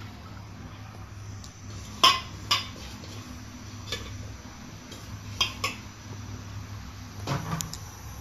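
Metal cookware clanking as chopped banana stem is tipped from a metal bowl into a cooking pot: a few short, sharp clanks, the loudest two about two seconds in, more around four and five and a half seconds, and a small cluster near the end. A steady low hum runs underneath.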